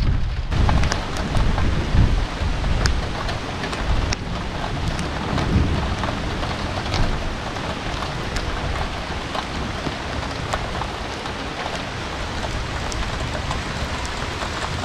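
Heavy thunderstorm rain falling steadily, with many sharp drop ticks on nearby surfaces. A low rumble of thunder runs under it for the first few seconds and stops about four seconds in.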